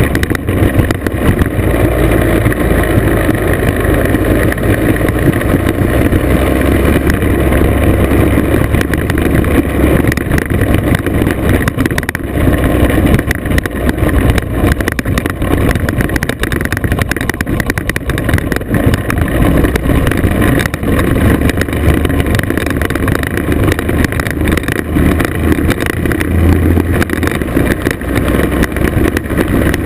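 Classic two-stroke scooter engine running steadily at riding speed, heard from the scooter itself on a gravel road, mixed with wind on the microphone and tyre rumble over loose gravel.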